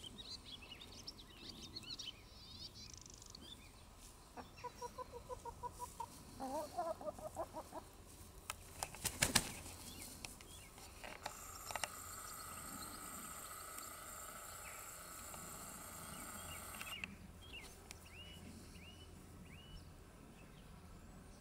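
Black Rock hens clucking in quick runs of notes, with a short loud flurry of wing flapping about nine seconds in. High chirping calls come early and again near the end, and a steady high hum runs for about six seconds in the middle.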